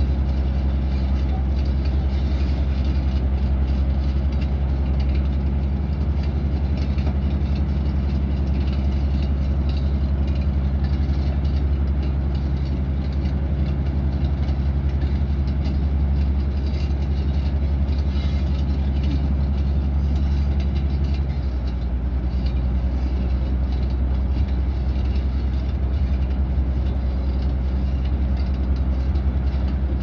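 Large crawler bulldozer's heavy diesel engine running steadily as the machine works, with faint clatter over the deep engine note. The engine note drops slightly about two-thirds of the way through.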